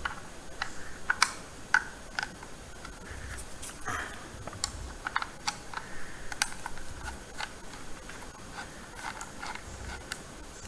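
Irregular small clicks and ticks of a screwdriver turning out the screws that hold a 2.5-inch laptop-size hard drive in its bracket.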